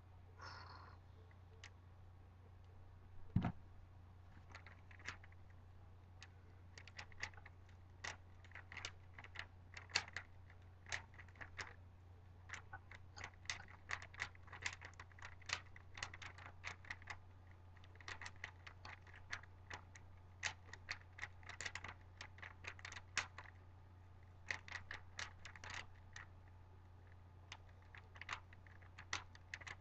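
A Rubik's Cube being turned fast in a timed speedsolve: rapid plastic clicking of the layers in irregular bursts with short pauses between them. One thump about three seconds in.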